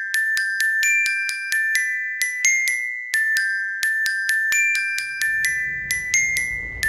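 Background music: a melody of high, bell-like struck notes in the manner of a glockenspiel or music box, about three notes a second, with a low rumble coming in near the end.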